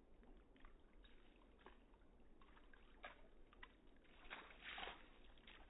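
Dutch shepherd's paws splashing in a shallow puddle of meltwater: a run of faint small splashes, the loudest a little past the middle.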